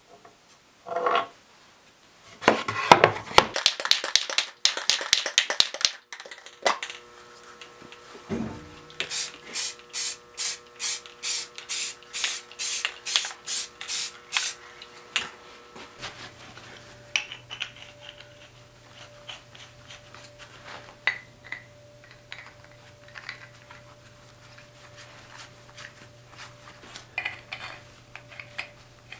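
Workshop handling noises: loud rubbing and scraping about three seconds in, then an aerosol spray-paint can giving about fourteen short, evenly spaced bursts of spray. After that come light metallic clinks and scrapes of black iron pipe fittings being screwed together by hand, over a steady low hum.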